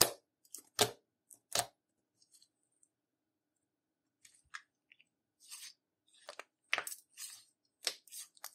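Thick slime, with eyeshadow and glitter mixed in, being pressed and poked by fingers and making sharp wet pops and clicks. There are three loud pops in the first two seconds, then a run of softer, irregular clicking and crackling.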